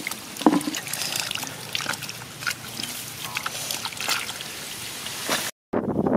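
Hands and feet working in shallow muddy water while catching fish: irregular sloshing with many small, sharp splashes and drips. Near the end it cuts off abruptly and is followed by a heavier, lower sloshing.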